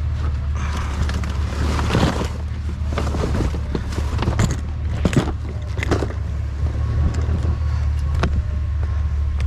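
Vehicle engine idling steadily, with rustling and a few sharp knocks as gear is handled; the loudest knocks come about two and five seconds in.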